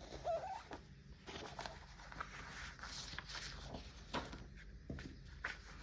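Faint rustling and light taps of a cross-stitch kit's packaging and contents being handled, in scattered short strokes.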